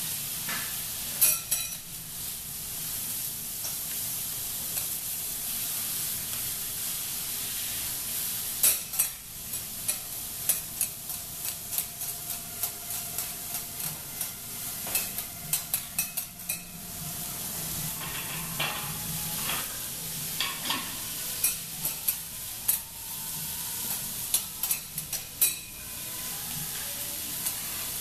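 Food sizzling on a steel teppanyaki hotplate, with metal spatulas clacking and scraping on the plate in quick runs of strokes as the food is tossed and chopped.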